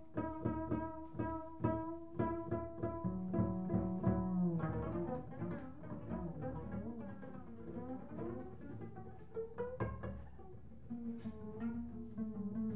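Free-improvised duet of tenor saxophone and plucked double bass. Held notes waver in pitch through the middle and settle into steady tones near the end, over a run of short plucked bass notes.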